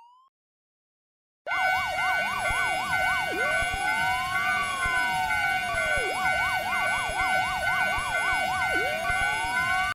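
Police car siren sound effect starting suddenly about a second and a half in after a short silence, switching between a fast up-and-down yelp and a slow rising-and-falling wail, over steady high tones.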